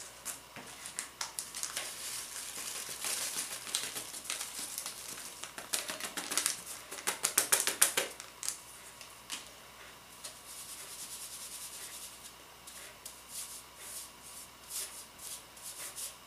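Baking powder being sifted through a hand-held kitchen sieve over a mixing bowl: quick, irregular light clicks and rustles as the sieve is shaken and the powder worked through the mesh, thinning out midway and picking up again near the end.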